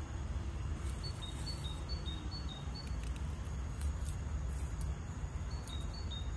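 A steady low rumble of wind on the microphone, with a small bird repeating a high two-note call, a quick run of alternating notes about a second in and again near the end.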